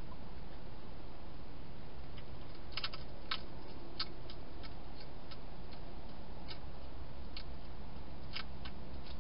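Hedgehog crunching dry food: irregular sharp clicks starting about two seconds in, over a steady low hiss.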